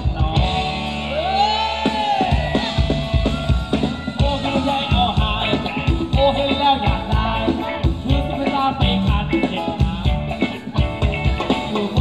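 Live band playing a Thai ramwong dance song: a singer over a drum kit with a steady beat.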